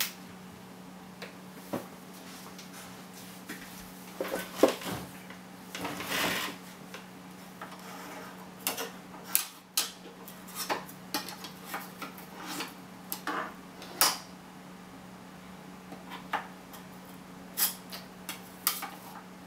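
Scattered sharp clicks and light clatter of circuit boards and a mitre gauge being set down, slid and picked up on the metal table of a scroll saw, over a faint steady hum.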